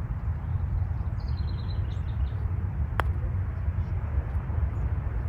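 Steady low rumble, with a few high bird chirps about a second in and a single sharp click about three seconds in.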